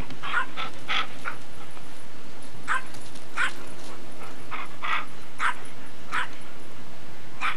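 A dog whimpering in short, high sounds, about a dozen of them spaced unevenly.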